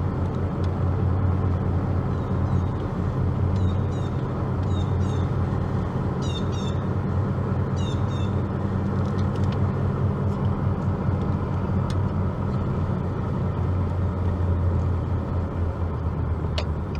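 Car engine and road noise from inside a moving vehicle: a steady low hum. Groups of short, high chirps come through between about two and eight seconds in.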